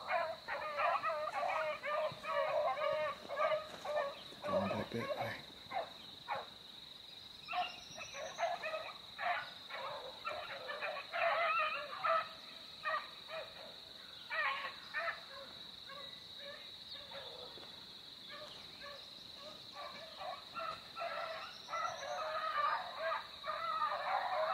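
A pack of beagles giving mouth on a rabbit's track: many short, overlapping barks and bawls in clusters. The barking thins out around the middle and picks up again near the end.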